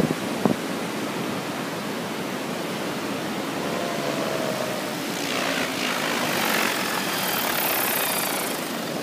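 A radio-controlled helicopter's rotor whine, faint at first and growing louder and higher from about halfway through as the helicopter comes down low, then dropping away shortly before the end. It sits over a steady hiss of surf and wind, with two short thumps near the start.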